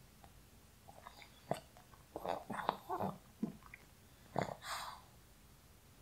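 Sleeping pug's short breathing and mouth noises: a scatter of faint clicks and brief breaths between about one and five seconds in.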